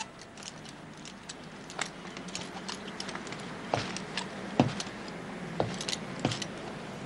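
Scattered light clinks and knocks of household activity over a faint steady low hum. The knocks are sparse at first and come more often and louder in the second half.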